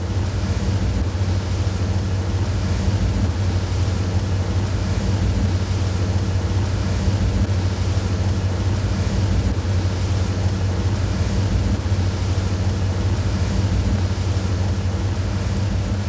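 Open-topped car driving at speed, heard from inside: a steady low engine drone under a constant rush of wind.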